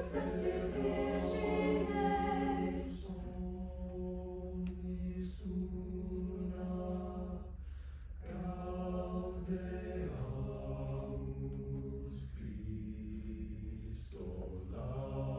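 Choir singing long sustained chords in phrases of a few seconds each, with no words picked out, over a steady low hum.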